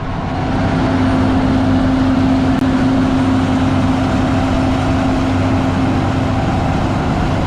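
Tractor engine running as it pulls a grain cart out to the combine, a steady hum that gets louder in the first second.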